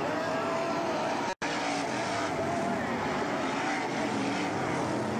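Winged sprint car engines running hard on a dirt oval, their pitch wavering as the cars race past. The sound cuts out for an instant about a second and a half in.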